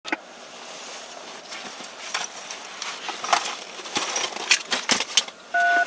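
Faint hiss with scattered sharp clicks and clinks, several in quick succession in the second half. Near the end a touch-tone (DTMF) keypad beep begins, two steady tones sounding together.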